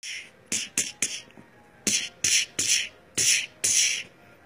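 A person beatboxing: nine short hissing 'tss' and 'chh' mouth sounds in an uneven rhythm, several opening with a soft thump.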